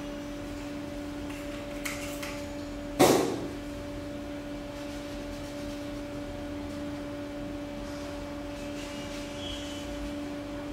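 Steady low electrical hum from the powered-on UV printer, with one sharp click about three seconds in.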